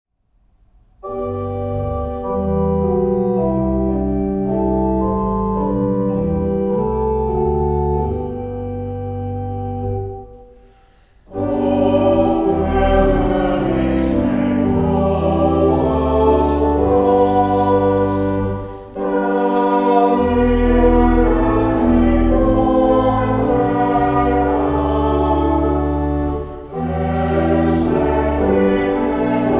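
Organ playing a hymn introduction in held chords, then, after a short pause about eleven seconds in, voices singing the hymn with organ accompaniment, with brief breaks between lines.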